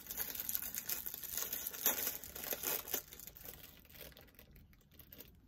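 Foil wrapper of a toaster pastry being torn open and crinkled, with a dense crackling for about three seconds that then dies down.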